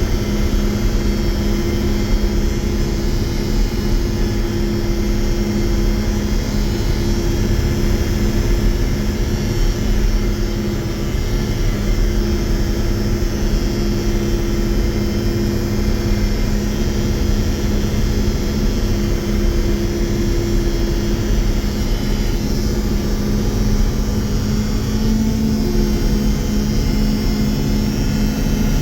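Combine harvester engine running steadily at working speed, a continuous drone with a held tone in it that shifts slightly near the end.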